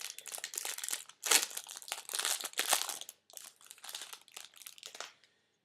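Clear plastic wrapper of a trading-card pack crinkling as it is handled, with dense crackling that stops about five seconds in.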